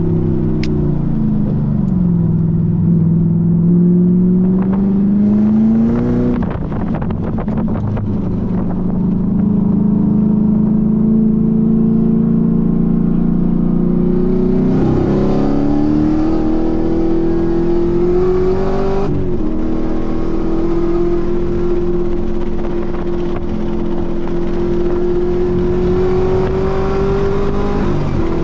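Chevrolet Camaro ZL1 1LE's supercharged 6.2-litre V8 under hard lapping. The engine pitch falls near the start, then climbs through the gears with sudden drops at the upshifts, about six, nineteen and twenty-eight seconds in.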